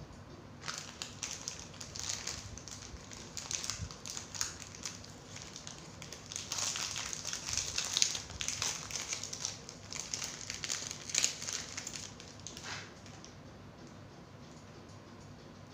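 Small clear plastic packet crinkling in the hands as a pair of earrings is taken out of it, in irregular bursts of rustling that die away near the end.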